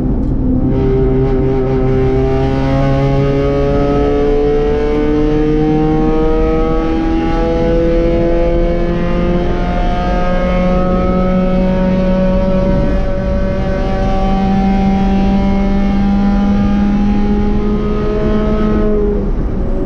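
B-Spec race car's engine at sustained full throttle, recorded onboard, its pitch climbing slowly through a long pull. The engines of other cars running close behind are heard too, with steady wind and road noise.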